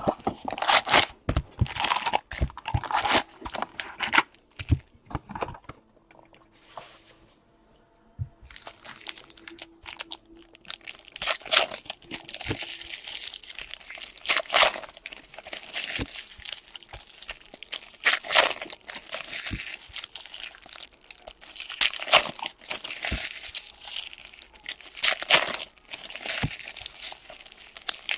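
Trading-card packaging being opened by hand: plastic and foil wrappers crinkling and tearing in repeated bursts, with a quieter lull of a couple of seconds about a quarter of the way through.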